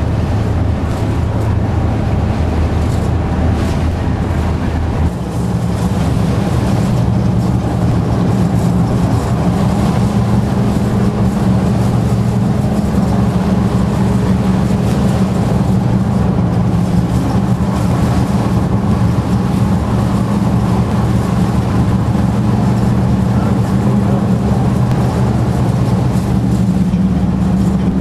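An engine running steadily. About five seconds in its pitch steps up and it runs a little louder.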